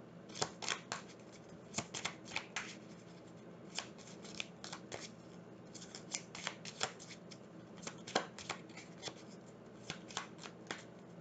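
Tarot cards being shuffled by hand: a run of irregular sharp snaps and flicks of card edges, clustered in bursts with short pauses between.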